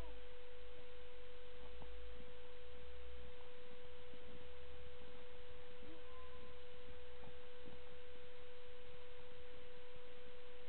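A steady, unchanging pure tone of middle pitch over a background hiss and a low rumble.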